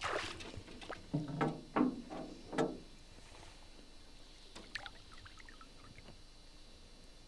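Hooked fish thrashing at the water surface beside a boat: a burst of splashing at the start, then four or five loud splashes in quick succession over the next couple of seconds, settling to quieter lapping water.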